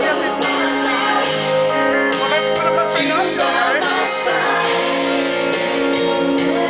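A woman singing into a microphone over instrumental backing music, held notes with the voice gliding over them.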